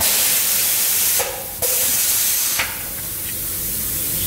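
Compressed air hissing from a tyre changer's pneumatic bead breaker as it works against the tyre's bead. The hiss starts loud, breaks off briefly about a second in, comes back, then drops to a softer steady hiss after about two and a half seconds.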